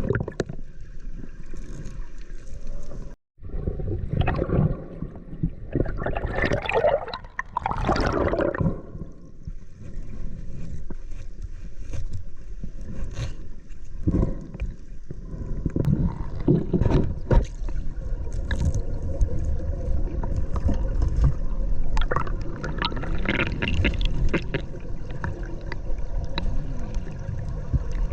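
River water rushing and gurgling around the camera, with scattered knocks and clicks. A brief cut-out about three seconds in.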